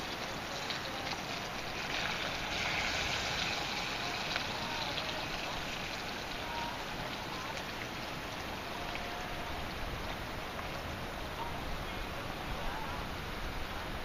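Campfire burning: a steady hiss with faint, scattered crackles.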